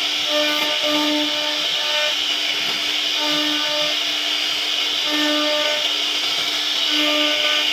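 CNC router spindle carving wood: a steady high-pitched hiss, with background music notes coming and going over it.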